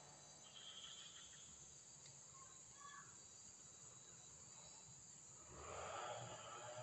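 Near silence: faint outdoor ambience with a few faint, short chirps. A rustling noise swells near the end.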